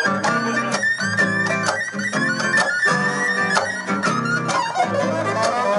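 Live noise music: dense layered guitar-like tones with pitches gliding up and down, broken by frequent sharp clicks and strokes.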